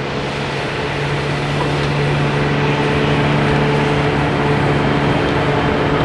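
McDonnell Douglas MD-83 airliner's JT8D turbofans during touchdown and rollout: a steady jet rumble with a low hum under it, growing a little louder over the first few seconds.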